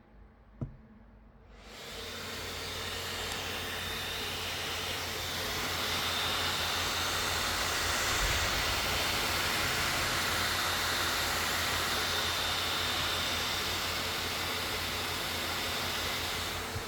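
MSI Titan 18 HX gaming laptop's cooling fans spinning up from near quiet to a steady loud rush of air with a faint high whine, after a single click at the start.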